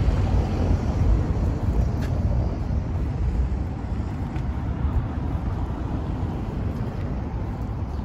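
Outdoor street ambience: a steady, loud low rumble with no distinct events, easing off slowly toward the end.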